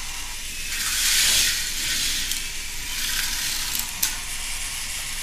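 K'nex roller coaster train rolling fast along its plastic track, a rushing rattle that swells about a second in and then runs on more evenly, with one sharp click near the end.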